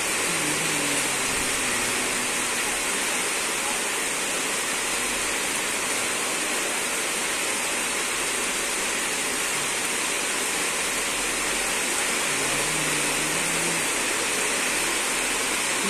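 Steady heavy rain: an even, unbroken hiss with no separate drops standing out.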